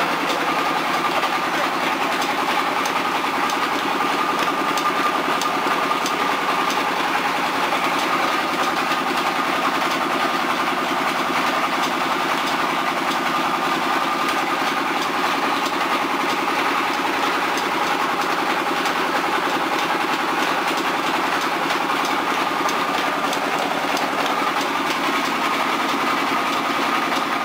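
Wheat flour mill machinery running steadily: a continuous mechanical drone with a steady high hum and a fast, even rattle.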